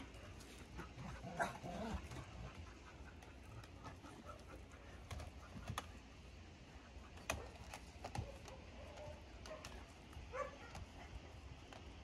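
Dogs moving close by: scattered sharp clicks of claws on the platform and a couple of short whines, one rising about ten seconds in.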